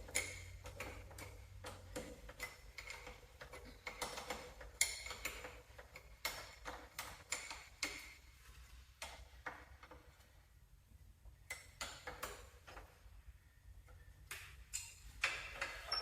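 Irregular metallic clicks and clinks of hand tools against metal parts, with a quieter stretch about ten seconds in.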